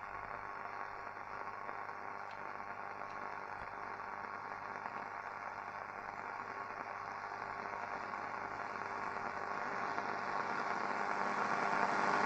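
Hiss and static from the Loewe-Opta Magnet 3737W tube radio's loudspeaker as the medium-wave band is tuned, with no station coming through. The noise slowly grows louder toward the end of the dial.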